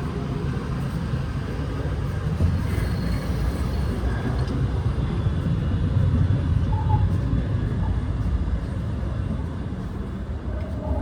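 Sunrise Seto sleeper train running, heard from inside a carriage: a steady low rumble.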